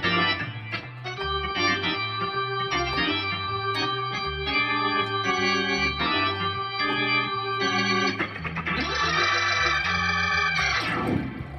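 A custom-assembled Hammond B3/A100 tonewheel organ being played: chords over a changing bass line, building about two-thirds of the way through into a full, held chord.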